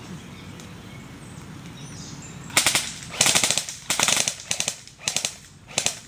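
Airsoft rifles firing in rapid full-auto bursts, about six bursts of quick cracks starting about two and a half seconds in.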